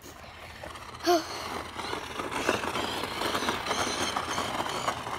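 Child's electric kick scooter rolling on asphalt: a rough, rattling rumble from its small wheels that builds from about two seconds in.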